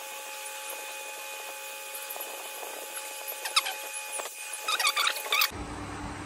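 Newborn German Shepherd puppy giving several short, high squeaks, mostly in the second half, while being rubbed with cotton wool to get it breathing; the cries show the weak pup has started to breathe.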